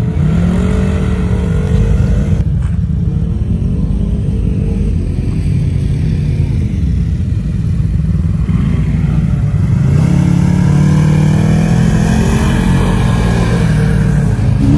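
Side-by-side UTV engines revving as the buggies drive over sand dunes, the pitch rising and falling again and again. It becomes steadier and louder from about ten seconds in.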